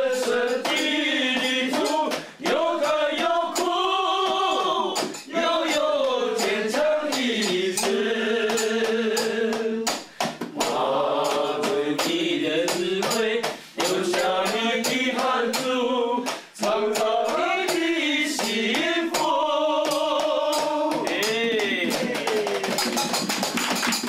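A group of people singing a song together, in long held phrases with short breaths between them. Sharp taps run through the singing.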